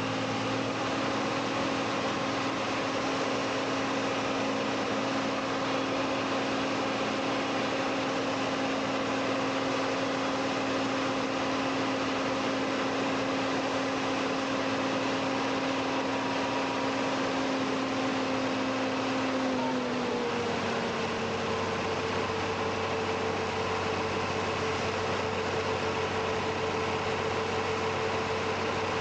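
Tractor engine running steadily while powering a stump grinder. About two-thirds of the way through its pitch drops slightly and stays lower, as when the engine comes under more load.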